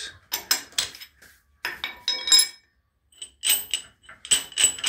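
Metal on metal: a string of irregular sharp clinks and taps, some ringing briefly, as the compression valves on the cylinder heads of a stopped Wichmann two-stroke diesel are opened by hand.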